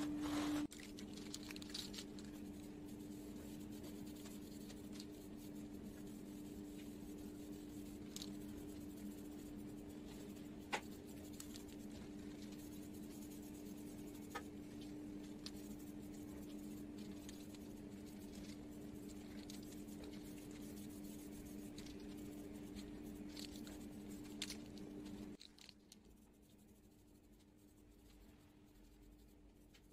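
A steady low hum with scattered light taps and handling rustles. The hum stops about four seconds before the end, leaving only faint room noise.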